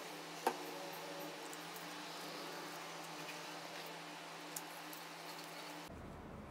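Quiet paper-crafting sounds at a wooden table over a steady faint hum: a single light knock about half a second in as a plastic glue bottle is set down, then soft ticks and rustles of paper being handled.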